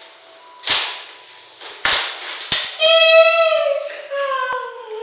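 Three sharp cracks of sticks striking each other, then a long cry that slides slowly down in pitch.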